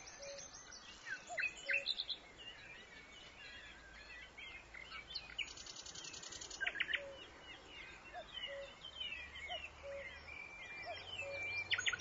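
Birds singing among trees: a mix of high chirps and quick trills, with a lower two-note call repeating every second or so.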